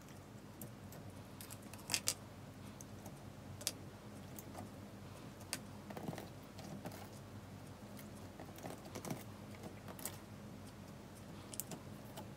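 Clear PVA slime studded with small beads being pressed and kneaded by hand, giving irregular sticky clicks and pops.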